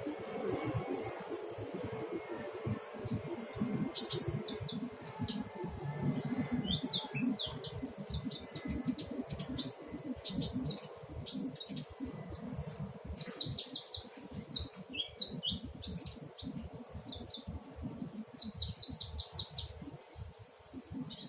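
Olive-backed sunbird (kolibri ninja) singing in scattered high chirps, short trills and quick runs of repeated notes: the halting practice song of a bird still learning to sing. A low, uneven rumble runs beneath it.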